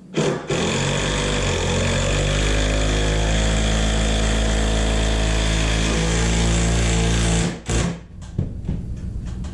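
Electric power tool motor running: a brief burst, then a steady run of about seven seconds that stops abruptly, followed by a short blip.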